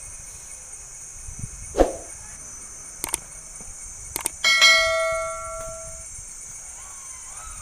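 A metal object struck once about halfway through, ringing with a bell-like tone that fades over about a second and a half. Before it there is a dull knock and a few sharp clicks, over a steady high hiss.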